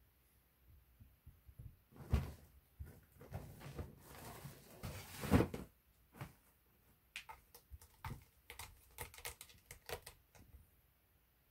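Cats playing around a sisal scratching post and a fabric play tunnel: two knocks, about two and five seconds in, with rustling between them, then a run of quick light scratches and ticks.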